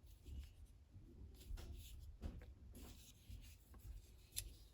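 Faint handling sounds of a Leatherman Surge multitool: soft rubbing and a few light clicks as its scissors are worked, with one sharper click near the end. The scissors' lock is failing to engage.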